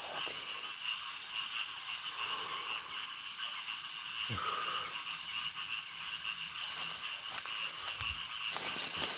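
Night chorus of frogs and insects: a steady shrill drone with a fast-pulsing higher tone running over it, and a brief single call about four and a half seconds in.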